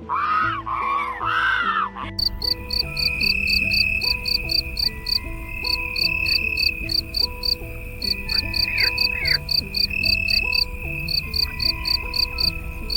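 A crow cawing a few times, then crickets chirping in an even rhythm of about three or four chirps a second over a steady high trill, with background music underneath.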